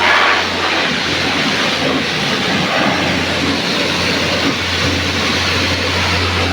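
Steady electric machine hum with a loud, even hiss.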